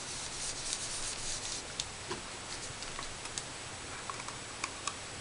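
Craft sponge rubbed and dabbed over cardstock to apply ink: a steady scratchy rustle with a few faint ticks.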